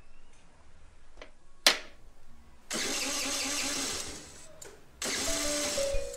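Honda motor scooter's small engine being started: a sharp click, then two loud bursts of engine noise, the second settling into a steady running hum.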